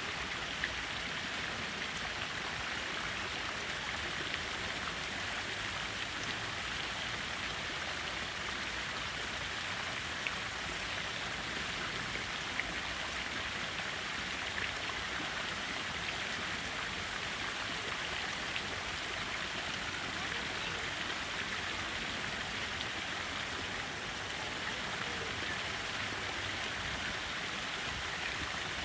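Steady rush of fountain water splashing down into a stone basin, with a few faint drip-like ticks.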